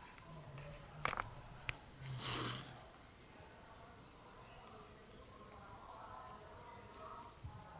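Steady high-pitched chorus of insects, a continuous even buzz. A few sharp clicks come about a second in, and a brief rustling rush just after two seconds.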